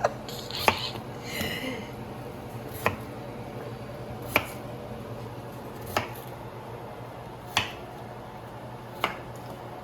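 Kitchen knife cutting through yam onto a cutting board: single sharp knocks about every one and a half seconds.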